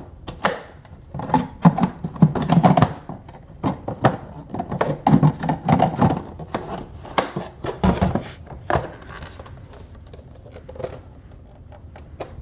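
Irregular thunks and clicks of an EyeVac stationary vacuum's dust bin and filter being handled, for about nine seconds, then fewer and quieter.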